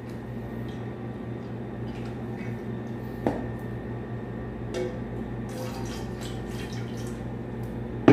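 Liquid poured from a can into a metal pot, trickling and dripping, over a steady low hum. A sharp knock comes right at the end.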